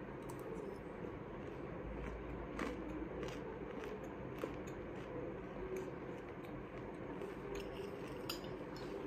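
Quiet eating: a metal spoon clicks faintly against a dish a few times while a crumbly dry-fruit sweet is chewed, over a low room hum.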